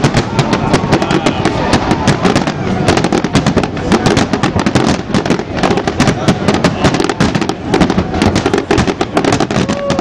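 Fireworks display going off without a break: many sharp bangs a second over continuous crackling.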